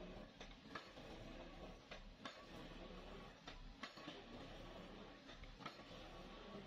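Near silence: a faint steady low hum with scattered faint ticks at irregular intervals.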